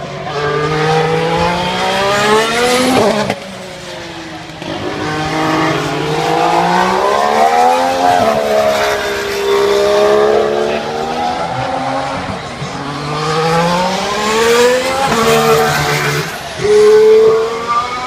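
Formula 1 cars running past on the circuit, their engine notes climbing in pitch through repeated gear changes. About three seconds in, one car passes with a sharp drop in pitch, and more cars follow in succession.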